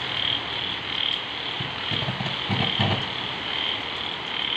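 Frogs croaking in a chorus, with a high call pulsing about twice a second over a steady background haze.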